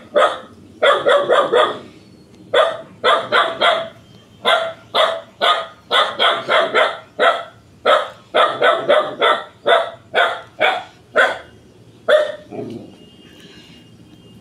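A dog barking repeatedly in a long series of sharp barks, often two to four in quick succession, until the barking stops about twelve seconds in.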